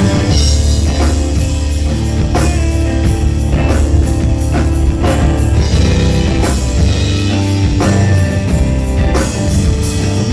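Rock band playing an instrumental passage, with a drum kit keeping a steady beat over bass and electric guitar.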